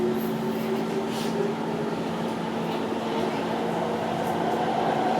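SMRT MRT train's electric traction motors whining from inside the car, several tones gliding upward in pitch as the train picks up speed, over steady running noise. This is the unusual motor sound the rider finds weird.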